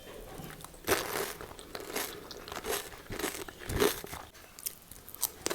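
A person biting and chewing crisp snack food, pani puri with dry chatpate: a string of sharp crunches at irregular intervals, the loudest about one second in and just before four seconds in.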